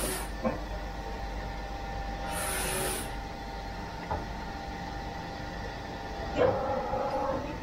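Steady hum of workshop machinery, with a short hiss about two and a half seconds in and a few hard knocks as the pressure plate is set onto the ring of crystal balls in the grinding pan; the loudest knock, about six seconds in, is a clank that rings on for about a second.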